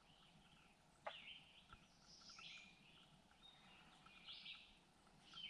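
Faint songbird calls: four short, high chirping phrases a second or two apart, the first opening with a quick falling note, over near-still quiet.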